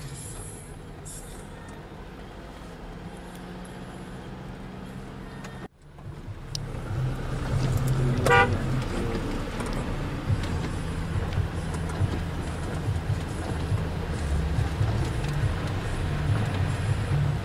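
Car driving on a road: steady low engine and road noise that cuts out for a moment about six seconds in, then comes back louder. A short vehicle horn toot sounds about eight seconds in.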